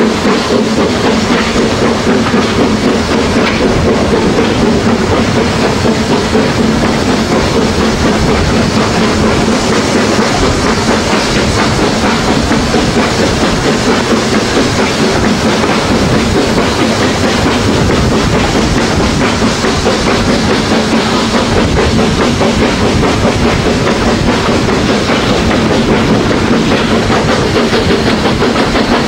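Steam-hauled passenger train running along the line, heard from on board: a steady loud rumble of the coaches with a clickety-clack from the wheels on the rail joints.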